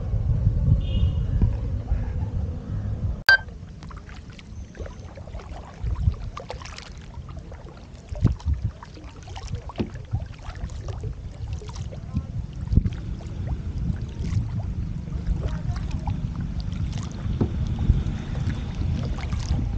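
Kayak paddling on calm water: a double-bladed paddle dipping and splashing at irregular intervals, with drips, over a low wind rumble on the microphone.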